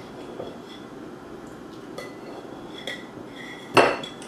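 Knife and fork cutting a sausage on a plate: faint scraping with scattered light clinks of metal on the plate.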